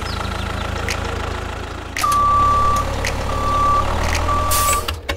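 A vehicle engine running steadily, joined about two seconds in by a reversing alarm that beeps three times.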